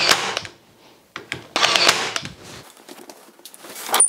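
Ozito PXC 18V cordless brad nailer firing brad nails into plywood: several sharp mechanical clacks, with knocks from handling the gun and the box.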